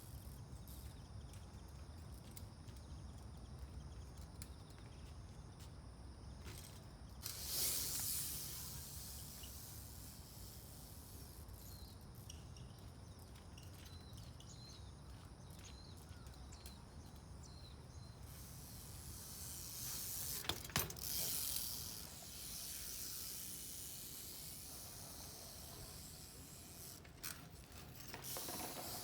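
Faint outdoor sounds of a street trials bike being ridden over steady background hiss: a swell of noise about seven seconds in, and a sharp knock with another swell around twenty seconds in.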